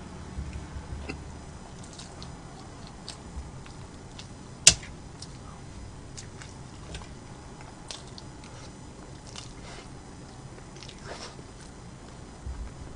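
Close-miked eating: chewing with many small wet mouth clicks, and one sharp, much louder click a little under halfway through.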